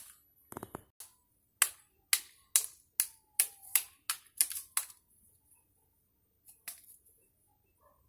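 A long thin stick whacking a tree trunk again and again: about ten sharp strikes in quick succession, roughly three a second, then a pause and one more strike.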